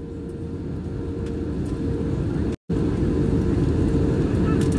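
Airbus A320 cabin noise in flight: a steady low rumble of the engines and airflow with a faint constant hum, the sound cutting out for a split second about two and a half seconds in.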